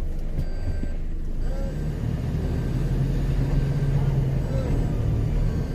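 Off-road vehicle engine running under load while a stuck vehicle is being helped out with a winch. Its note firms up and rises a little about two seconds in, with a few faint short beeps near the start.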